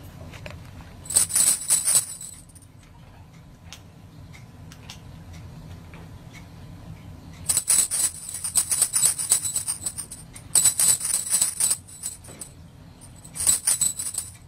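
Small metal jingles shaken in four short bursts: once about a second in, a longer spell from about seven and a half seconds, again around eleven seconds, and once more near the end.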